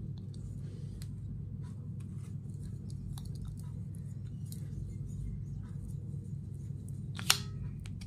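Rotary coaxial-cable stripper being turned around the end of an RG6 cable, its blades scraping through the jacket with faint scattered clicks over a steady low hum. A single sharp click about seven seconds in.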